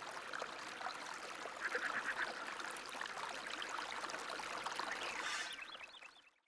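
Fountain water splashing and trickling, with a scatter of short chirping sounds over it; it fades out shortly before the end.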